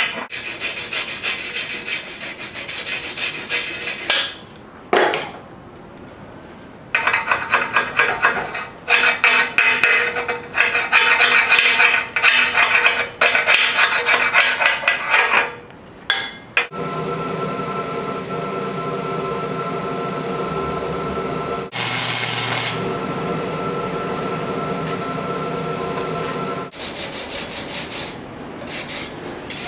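Slag hammer chipping and scraping slag off a fresh flux-core weld bead on a steel I-beam, in quick runs of rasping taps broken by short pauses. About seventeen seconds in, this gives way to a steady hum lasting about ten seconds.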